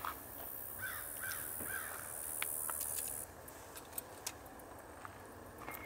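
A crow cawing three times in quick succession about a second in. Over it runs a high, steady hiss that cuts off suddenly about three seconds in.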